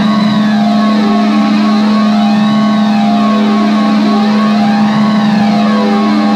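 Live electronic drone music from a synthesizer: a loud, steady low drone under layered held tones, with siren-like sweeps rising and falling about every two and a half seconds.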